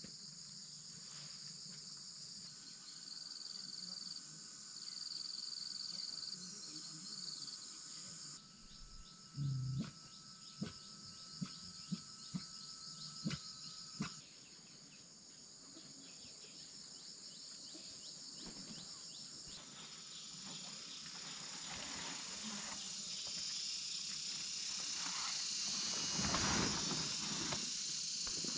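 Insects trilling in a steady high-pitched chorus, with a thinner steady tone joining for a while. A thump and a handful of sharp clicks come between about nine and fourteen seconds in, and the sound grows louder and noisier near the end.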